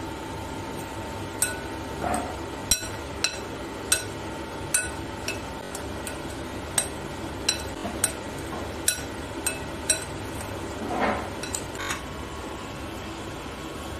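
Metal fork clinking against a glass mixing bowl, some fifteen sharp ringing clinks at uneven spacing, with a couple of softer scrapes, as pineapple cubes are tossed in a spice coating; the clinks stop near the end.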